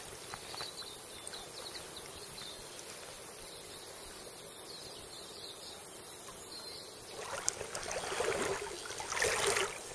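Steady outdoor river ambience: an even rush of flowing water. From about seven seconds in, a louder, uneven rushing noise comes and goes.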